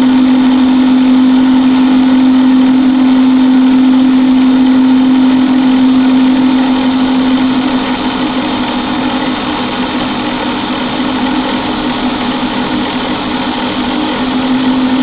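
Drill press converted to a mill, its spindle running at about 5,000 RPM with a steady, constant hum while a 2 mm coated end mill cuts a slot into a hardened steel hex bolt.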